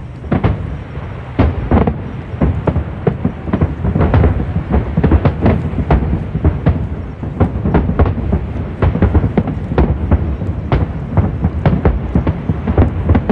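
Aerial fireworks bursting in rapid volleys: many overlapping bangs a second over a continuous low rumble.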